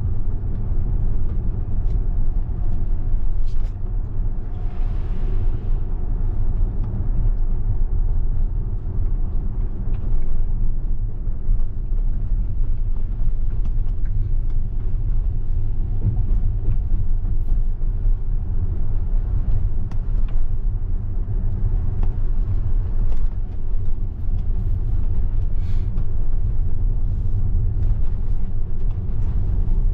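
Steady low road rumble and tyre noise heard inside a Tesla electric car's cabin while it drives on wet pavement, with a brief swell of hiss about five seconds in.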